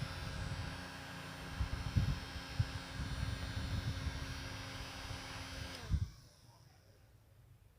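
Steady hum of a small electric motor, with scattered low bumps; it winds down and stops about six seconds in.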